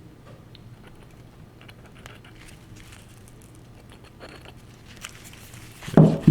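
Faint, scattered small clicks and taps from handling a 1911 pistol's slide while drops of gun oil go onto its rails. A short louder sound, falling in pitch, comes near the end.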